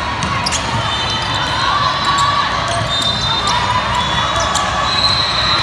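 Indoor volleyball rally in a large gym: the ball being struck and sneakers squeaking on the hardwood floor, over a steady hubbub of voices.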